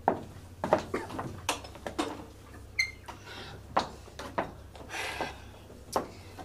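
Footsteps crossing a wooden stage, then an old wall telephone being handled: a string of sharp knocks and clicks about every half second, with a short high squeak about three seconds in and some rustling, over a low steady hum.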